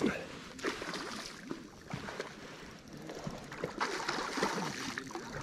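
Spinning reel being cranked on an ultralight trout rod during a lure retrieve, heard as close handling noise: scattered soft clicks and rustles with no steady rhythm.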